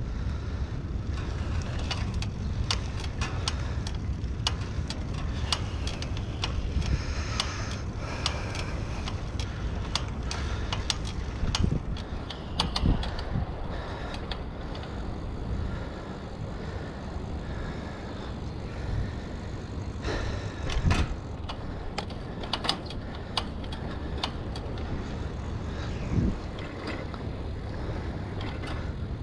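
Rental bicycle ridden along a paved path: a steady low wind rumble on the action-camera microphone with tyre noise, and frequent clicks and rattles from the bike's metal front rack and frame over bumps, a few of them louder knocks.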